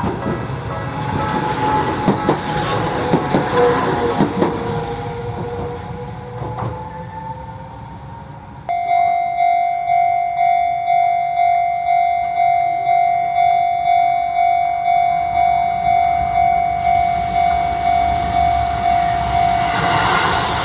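A Tokyu Setagaya Line 300 series train passes a level crossing, its wheels clicking over rail joints under a falling whine, and fades away. About nine seconds in, a Japanese level-crossing alarm bell starts, ringing in steady, evenly spaced dings, roughly three every two seconds.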